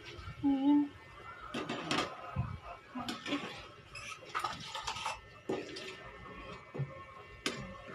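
Irregular clinks and knocks of vegetable chunks and a spoon against a metal cooking pot of soup as pieces are added and moved around.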